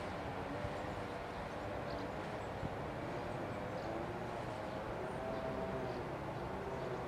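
A train running in the distance: a steady low noise with a faint wavering hum.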